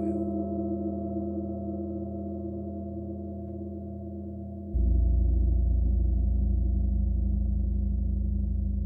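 A gong ringing with a low, steady hum that slowly fades. About five seconds in, a deeper and louder low tone comes in suddenly and carries on ringing.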